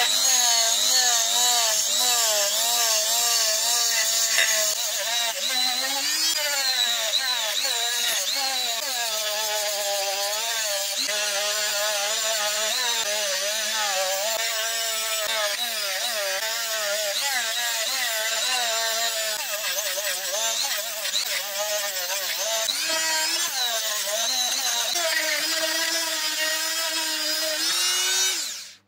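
Small electric power tool running continuously, its motor pitch wavering up and down irregularly as it is pressed against the work; the sound fades out near the end.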